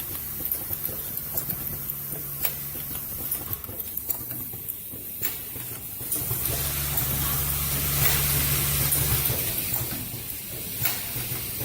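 Automatic plastic zipper slider mounting and combining machine running: a steady mechanical hum and hiss with occasional sharp clicks. From about six seconds in it grows louder for a few seconds, then drops back near the end.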